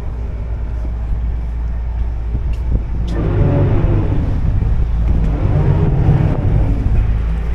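Small boat's engine running at idle, then revved up and down twice, its pitch rising and falling, while the stern is manoeuvred in against the dock.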